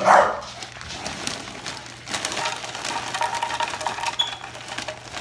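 Crushed hot Cheeto crumbs being stirred inside a plastic blender jar with the motor off: irregular light scraping and tapping, after a short loud sound right at the start.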